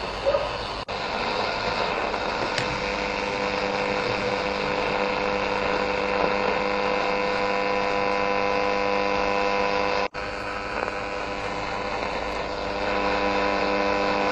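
AM radio receiver tuned between medium-wave stations, giving a hiss with a steady hum of several tones. The sound cuts out for an instant about a second in and again about ten seconds in as the tuner steps to a new frequency.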